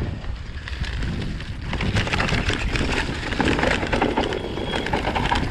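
Mountain bike ridden hard on a dirt trail. Wind buffets the onboard camera's microphone with a low rumble, and from about two seconds in there is a steady crunch of tyres over dirt and leaves, full of rattles and knocks from the bike.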